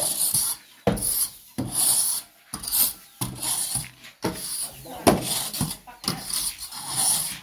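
Metal rake scraping cassava flour across a large flat pan, in repeated strokes a little more than once a second, as the farinha toasts and begins to take colour.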